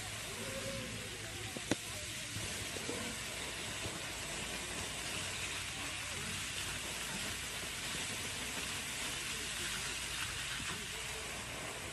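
Steady hiss of a tall jet of water spraying upward and raining down on an elephant and the grass. A single sharp click comes a little under two seconds in.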